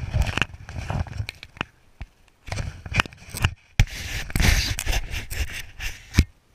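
Handling noise from an action camera being picked up and moved about, fingers rubbing and knocking on its housing: a dense run of scrapes and sharp clicks that cuts off abruptly near the end.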